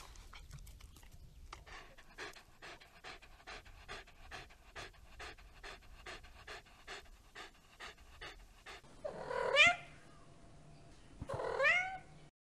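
A dog panting quickly, about three to four breaths a second, then a cat meowing twice.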